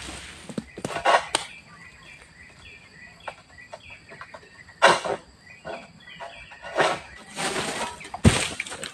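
Small birds chirping, broken by several short rustling, scraping noises, the loudest near the end with a dull thud.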